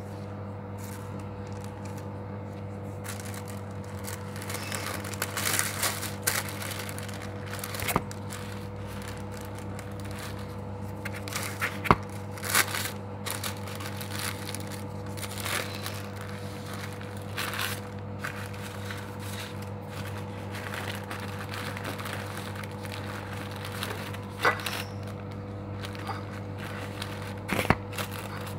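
White paper and disposable plastic gloves rustling and crinkling in irregular bursts as a sandwich is handled and wrapped, with a few sharp taps, the loudest about twelve seconds in. A steady low electrical hum runs underneath.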